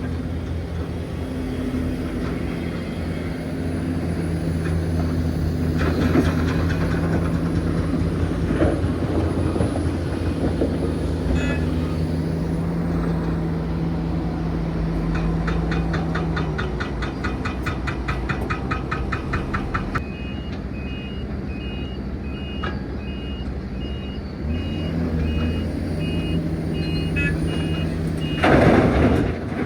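Hitachi Zaxis 490LCH excavator's diesel engine running steadily under load, with a few seconds of rapid, even clicking around the middle. Over the last third a truck's reversing alarm beeps repeatedly, and a short, loud burst of noise comes just before the end.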